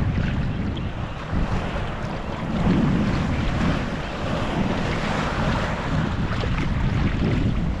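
Wind buffeting the microphone over the steady wash of choppy sea water around a kayak.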